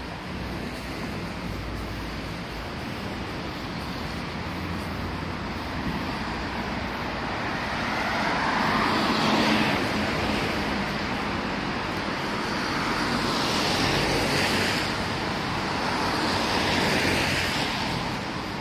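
Cars passing on a rain-wet city street, their tyres hissing on the wet road over a steady traffic background. Three passes swell up and fade, about halfway through and twice more near the end.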